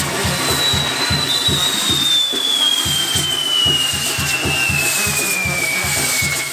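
Castillo fireworks tower burning: spinning firework wheels hiss, and a single long whistle begins about half a second in and slowly falls in pitch. Underneath runs band music with a steady low beat of about three per second.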